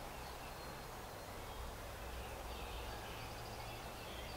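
Quiet outdoor background: a steady low hum with a few faint bird chirps.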